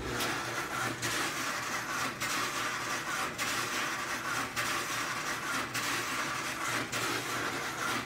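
GE GTD42GASJ2WW clothes dryer running with a grinding noise: a steady rumble with a scraping stroke about once a second, made by a bobby pin wedged underneath the drum.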